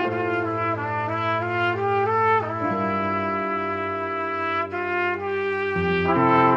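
Trumpet trio playing in harmony: the top part moves through short notes while the lower parts hold, over a low bass note that shifts to a new chord twice.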